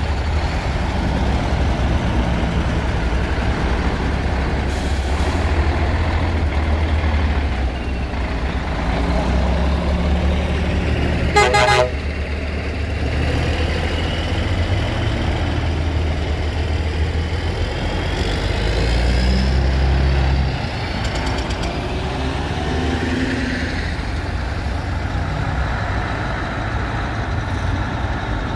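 Classic lorry engines running as trucks pull away and drive past, with a short horn toot about eleven seconds in.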